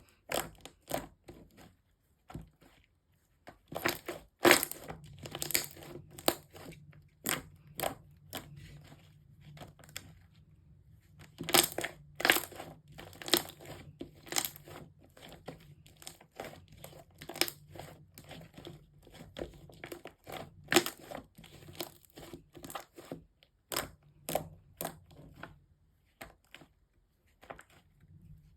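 Hands squishing and stretching slime, making irregular crackling clicks and pops.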